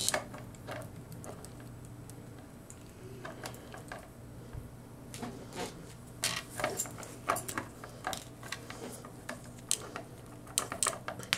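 Small plastic clicks and taps as a plastic action figure is handled and posed, its parts and joints knocking and clicking in scattered clusters, busiest in the second half.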